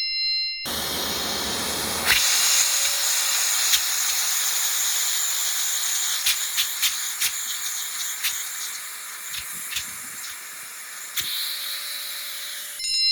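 Vacuum cleaner running with a steady, loud suction hiss, with scattered sharp clicks and rattles as small objects are sucked up. A short bell-like ding sounds just before the hiss starts and again at the very end.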